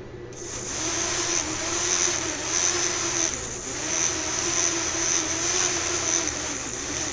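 Small electric motors of a fischertechnik monorail car spinning its two propellers: a steady whir with a rush of air and a wavering hum, starting about half a second in.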